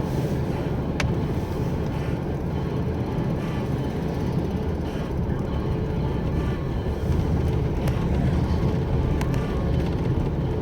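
Pickup truck driving, heard from inside the cab: a steady low rumble of engine and road noise, with a few faint clicks.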